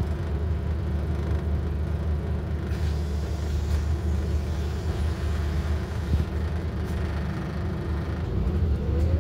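Scania K230UB's five-cylinder diesel heard from inside the bus saloon, running with a steady low rumble while the bus stands. About eight seconds in it picks up as the bus pulls away, with a rising whine from the ZF automatic gearbox.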